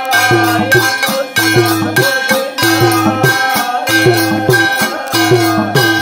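Rajasthani folk devotional music: hand drums beating a steady rhythm, with brass plate gongs struck with sticks ringing on every beat and a man's voice singing along.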